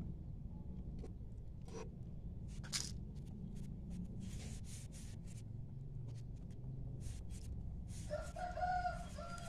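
A rooster pecking at rice and grit on the ground, heard as scattered short clicks. About eight seconds in, a rooster crows once, and the crow runs to the end.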